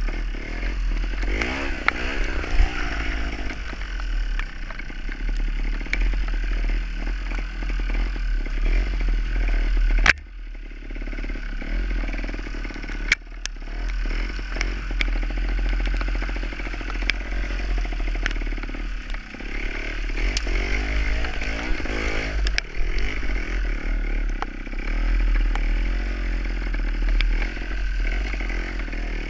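Gas Gas TXT270 trials bike's two-stroke engine, revving up and down as it is ridden over rough ground, with knocks and clatter from the bike. The sound drops away suddenly for a moment about ten seconds in.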